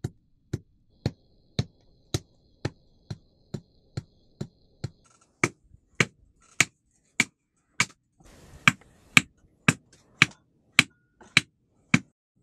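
A blacksmith's hammer striking on an anvil in a steady beat of about two blows a second, the blows growing louder about halfway through.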